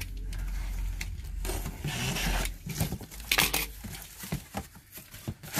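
Box cutter drawn along the packing tape on a large cardboard box, a dragging scrape against the cardboard. A sharp tearing rip comes a little past halfway, then knocks and rustles as the cardboard flaps are pulled open.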